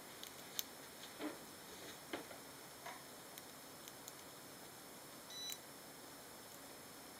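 Faint, scattered ticks and a few soft taps from Roborovski dwarf hamsters moving about their cage, with one short high-pitched beep-like tone about five seconds in.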